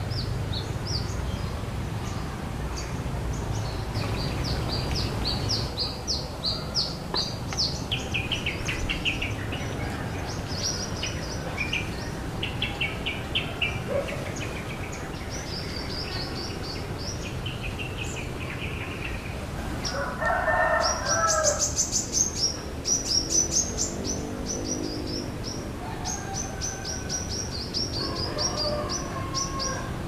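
Small birds chirping in quick runs of high notes throughout, with a louder, lower bird call, fowl-like, about twenty seconds in, over a steady low hum.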